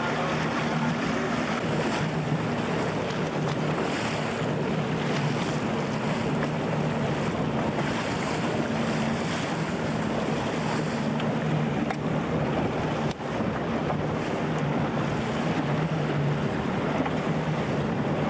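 Wind buffeting a camcorder microphone over a steady low engine drone, with a brief dropout about 13 seconds in.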